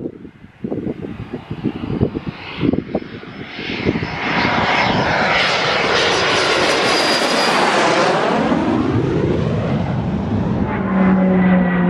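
BAE Systems Hawk T2 jet trainer's Rolls-Royce Adour turbofan passing low overhead: a loud rushing jet noise builds about four seconds in, and its pitch sweeps down as the jet goes by. Low thumps of wind on the microphone come before it, and a steady low hum comes in near the end.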